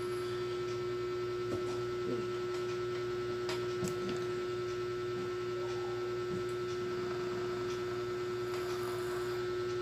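A steady, unchanging hum on one pitch, with a weaker higher tone above it. A few faint light clicks and taps come in the first few seconds.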